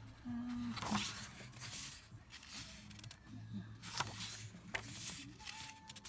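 Paper pages of a CD album's lyric booklet being turned by hand: several soft swishes and rustles with a few light clicks, over a low steady hum.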